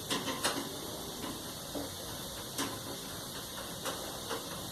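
A few scattered sharp clicks and taps of a hand tool on a clothes dryer's cabinet screws and panel, about five in all, over a steady background hiss.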